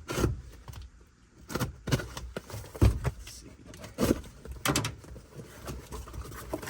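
A cardboard box and its contents being handled and rummaged through: irregular knocks and taps with rustling.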